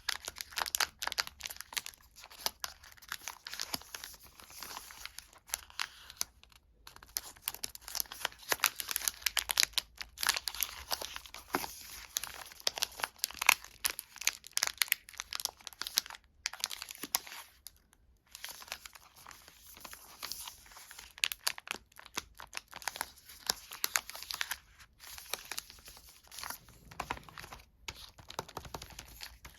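Sweet and chocolate wrappers being torn open and crinkled by hand: a dense, irregular crackling of packaging with short pauses.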